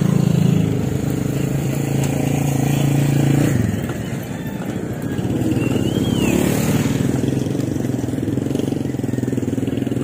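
Small motorcycle engines running close by: one holds a steady note for the first three and a half seconds and then falls away, and another passes later, with a brief high chirp about six seconds in.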